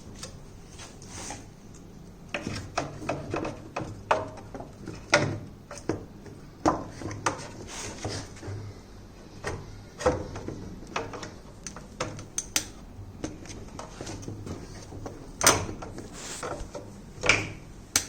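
Hands working on a washing machine's water inlet valve and its fittings: irregular clicks, knocks and rubbing of plastic and metal parts, with a few sharper knocks near the end.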